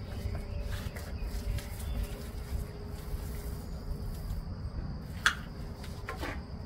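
Paint roller working thick terrazzo paint over a concrete floor, with a faint steady high tone in the background; a sharp click about five seconds in and a smaller one about a second later.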